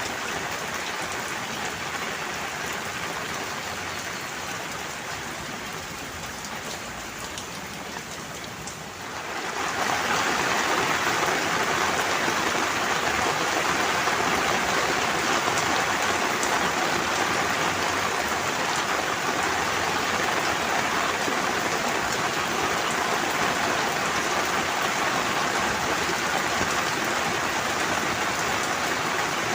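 Steady rain falling, an even hiss of drops with no thunder; about ten seconds in it becomes suddenly louder and heavier, then holds steady.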